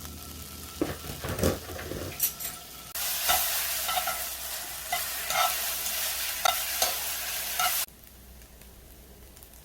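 Egg fried noodles stir-fried in a hot pan: sizzling, with a spatula repeatedly scraping and tapping the pan. A few knocks come first, then the sizzling grows loud about three seconds in and cuts off suddenly near eight seconds.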